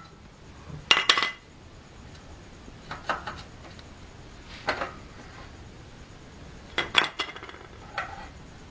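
Metal parts of a horizontal pellet mill's die head clinking and knocking as the perforated die plate and its retaining ring are handled and taken off by hand. Scattered single clinks a second or two apart, with two close together about two-thirds of the way through.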